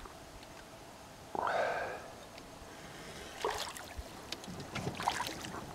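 Light knocks, clicks and a low thump of gear being handled inside a canoe, from about three and a half seconds in. These follow a brief sudden swishing splash about a second and a half in.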